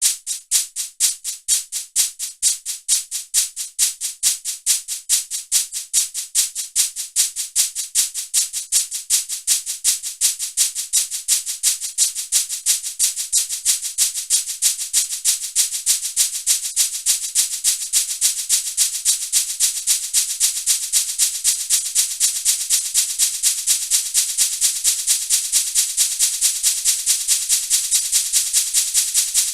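A shaker-type rattle shaken in a steady rhythm that gradually speeds up, from about two strokes a second to about four or five a second.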